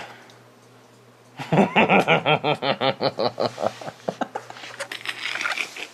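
A man's voice in a rapid run of short laugh-like pulses, about five or six a second, starting about a second and a half in and tapering off near the end.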